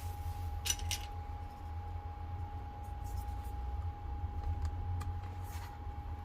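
A few light clicks and taps of small hard objects being handled, over a steady low hum and a faint constant tone.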